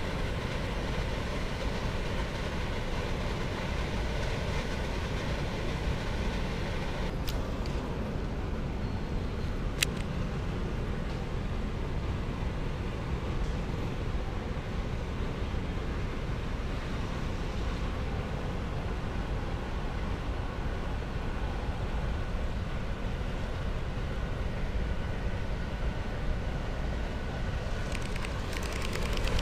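Steady low rumbling outdoor noise, with a faint click about seven seconds in and a sharper click near ten seconds.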